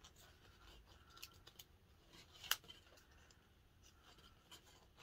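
Near silence with faint rustling and small clicks of fingers handling a baby head measuring tape, and one sharper click about two and a half seconds in.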